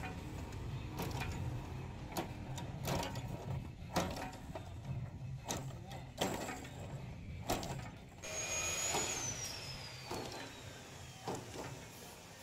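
Hand-lever cashew cutting machine clacking as its blades come down on the nuts: a sharp metal knock about every half second to a second over a low hum. About eight seconds in the knocks thin out and a long whistle falls steadily from high to middle pitch over about four seconds.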